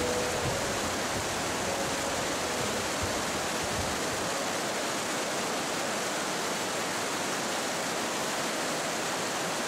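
Mountain river rapids: fast water rushing over boulders in whitewater, a steady even rush.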